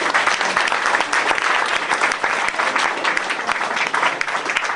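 Audience applauding: many people clapping steadily, with some laughter mixed in at the start.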